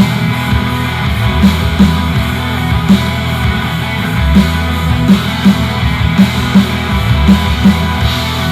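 Rock music with distorted electric guitar and a steady drum beat, played loud through an LG XBOOM party speaker.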